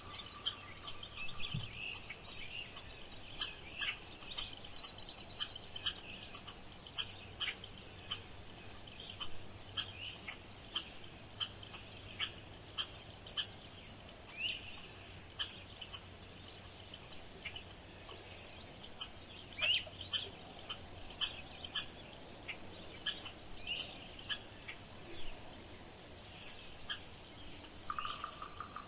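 Birds chirping: short, high notes repeating about two or three times a second, with other bird calls mixed in. A thin steady buzz comes in near the end.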